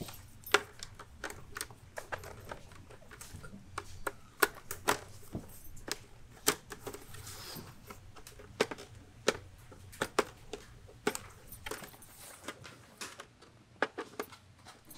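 Irregular sharp clicks and taps with light rustling as the padded liner and cheek pads of a motorcycle helmet are pressed and fitted into the shell by hand, plastic tabs and fasteners knocking against the shell.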